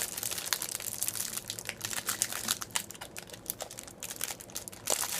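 Plastic wrapper of a pack of Peeps marshmallows crinkling as it is pulled and torn open by hand, a dense run of irregular crackles, louder near the end.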